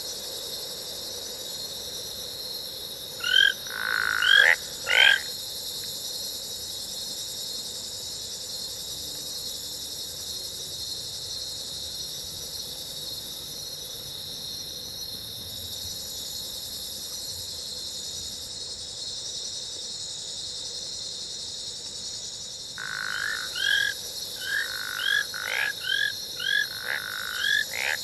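Recorded jungle ambience sound effect: a steady high insect drone throughout. Three loud, short animal calls come about three to five seconds in, and a rapid run of similar calls starts near the end.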